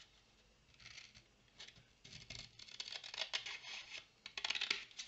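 Scissors snipping through paper, trimming off the excess in a series of cuts, with a quicker run of snips near the end.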